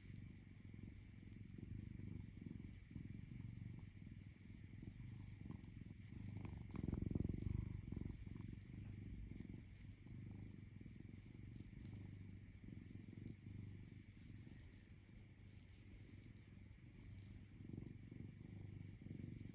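An animal purring: a low, fast-fluttering rumble that swells around seven seconds in, with a faint steady high-pitched whine behind it.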